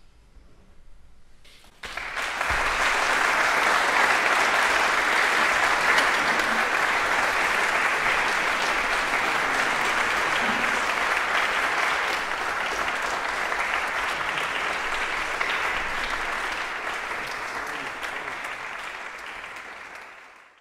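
Applause breaking out about two seconds in after a quiet moment, then dense steady clapping that slowly dies down and fades out at the end.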